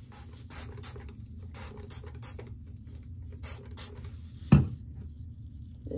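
Gloved hands rubbing and working through damp sisterlocks, giving short, irregular brushy scratching sounds. One sharp thump about four and a half seconds in.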